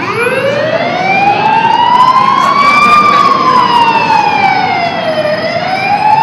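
A siren-like wailing tone that rises slowly for about three seconds, falls for about two, then starts rising again.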